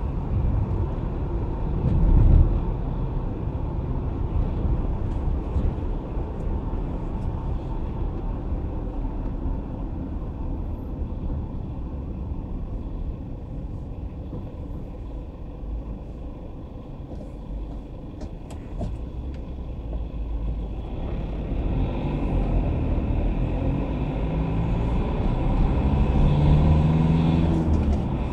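A car driving in city traffic, heard from inside the cabin: a steady low engine and tyre rumble, with a thump about two seconds in. It goes quieter in the middle while the car slows and waits at a red light, then the engine note rises as it pulls away again near the end.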